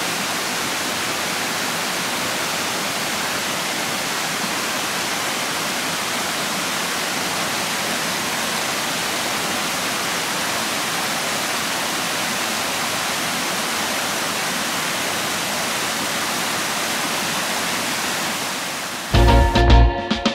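A rain-swollen mountain stream rushing over rocks, a steady even rush of water. Near the end it gives way to louder guitar music that starts abruptly.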